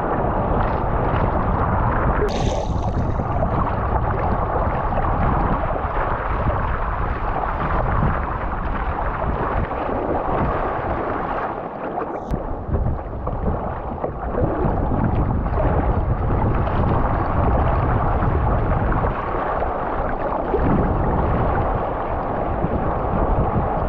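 Wind rumbling on the microphone over rushing water during a surf ride on a wave, with a brief sharp hiss a couple of seconds in.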